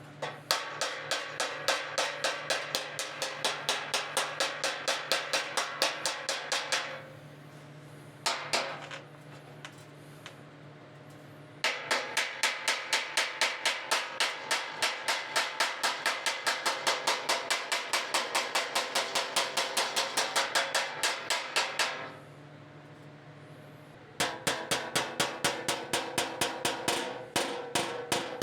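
Body hammer striking the sheet-steel fender of a 2023 Hyundai Palisade against a dolly in fast, even runs of about four blows a second, each blow ringing. Three long runs, with a short burst and pauses between them: hammer-and-dolly work straightening the dented, grooved fender.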